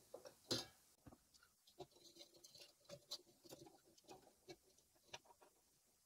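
Faint, scattered clicks, taps and scrapes of metal and plastic parts being handled while a Noctua NH-D15 tower CPU cooler is mounted: a screwdriver working the mounting screws between the heatsink towers and the fan being fitted.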